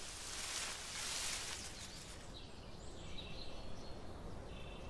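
Outdoor nature ambience: a soft rush like wind in foliage that swells twice, then faint high bird chirps in the second half.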